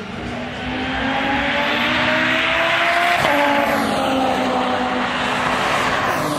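A modified car's engine at high revs as it comes down the track. The engine note climbs, breaks briefly about three seconds in as the car changes gear, then the car passes close near the end with a drop in pitch.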